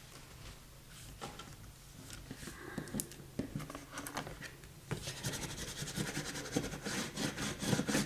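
Glued paper pages being rubbed and pressed down by hand, with scattered light clicks and taps; the rubbing gets busier about five seconds in.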